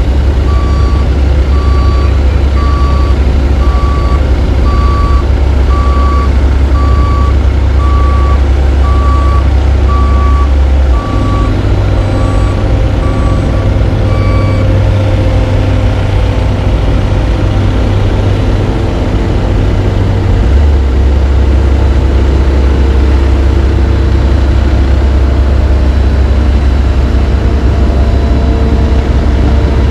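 Heavy diesel paving machinery running, a deep steady engine drone. A reversing alarm beeps about once a second, then stops about halfway through.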